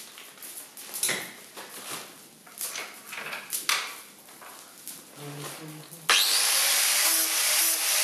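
Tools being handled and set against a vise for about six seconds, then an angle grinder fitted with a 36-grit sanding pad comes in suddenly and runs steadily against a grade 5 titanium punch, grinding off hammer marks.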